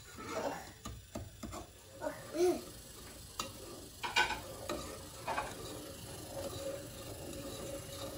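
Wooden spoon stirring a metal saucepan of melting butter, sugar and syrup, with scattered clicks and knocks of the spoon against the pan.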